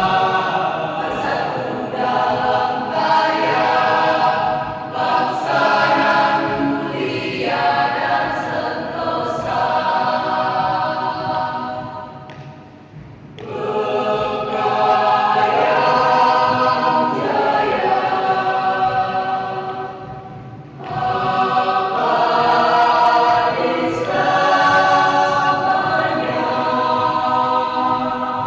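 High school choir singing a regional anthem in sustained chords, with brief breaks between phrases about twelve seconds in and again near twenty seconds.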